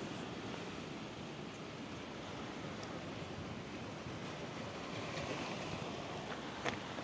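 Steady wash of sea waves with some wind, and one sharp click near the end.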